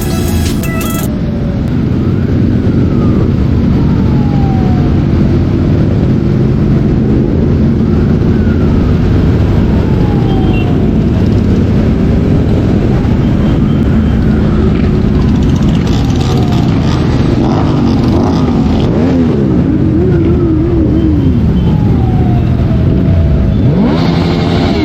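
Engines of a group of superbikes running steadily with road and wind noise. A wailing tone falls in pitch about every three seconds, like a siren, and near the end an engine note drops away.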